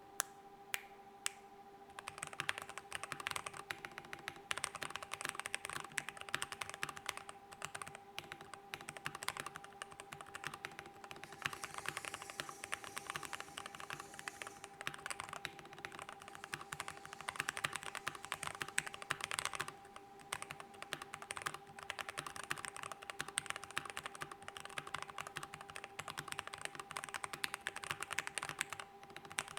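Mechanical keyboard being typed on fast and continuously, a dense run of key clacks, with a coin lying inside the keyboard case (the "penny mod") to change its sound. A few single key presses come first, then steady typing with a brief pause about two-thirds of the way through.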